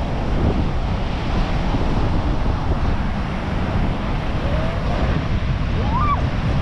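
Wind buffeting the microphone over the steady wash of ocean surf breaking on a beach.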